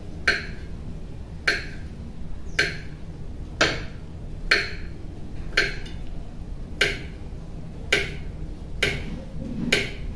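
Kitchen knife slicing a peeled banana into rounds on a plate, the blade clicking against the plate about once a second, ten cuts in a row.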